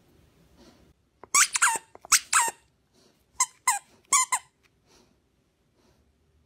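Plush duck squeaky toy squeaked repeatedly in the dog's jaws: two quick runs of sharp squeaks, each squeak dropping in pitch.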